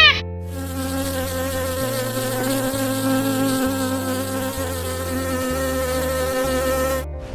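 Paper wasps buzzing at their nest, a steady drone that cuts off suddenly near the end.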